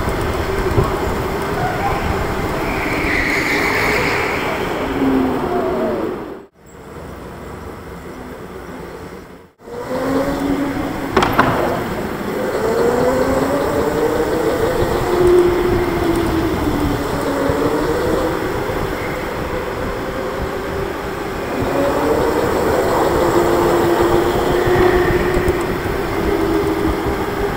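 Electric go-kart running at speed: a motor whine that rises and falls in pitch as it speeds up and slows for corners, over a steady rumble of tyres and wind. The sound drops away sharply for about three seconds near the middle, then comes back.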